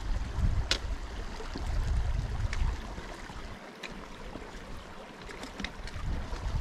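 Wind buffeting the microphone in gusts, a low rumble that eases off in the middle and picks up again near the end, with a few sharp light clicks.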